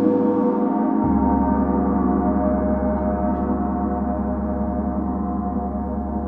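Planetary gong ringing in a dense wash of sustained overtones, slowly fading. Beneath it a low steady drone drops to a lower pitch about a second in.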